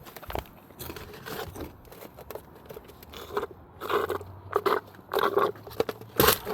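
Irregular close-up crunching, rustling and scraping handling noises, with a sharp knock near the end.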